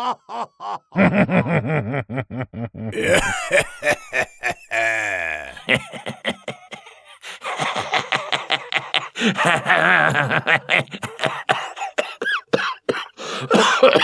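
People laughing hard in rapid, repeated bursts of voiced pulses.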